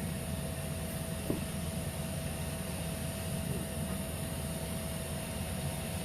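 Roomba robot vacuum running with a steady motor hum and a constant whine, with one brief click a little over a second in.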